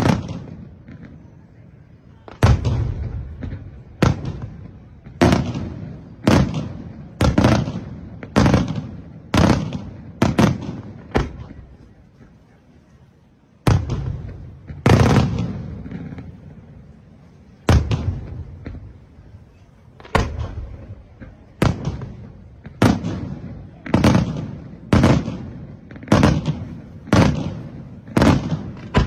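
Aerial firework shells bursting one after another, about one sharp bang a second, each trailing off in a low rolling echo. The bangs pause for about two seconds a little past the middle, then resume.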